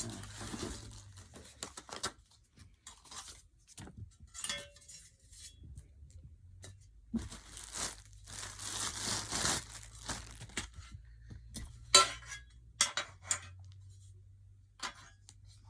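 Tape being peeled and torn off, in two longer rasping stretches with crinkling, then several sharp clicks and knocks, the loudest about twelve seconds in.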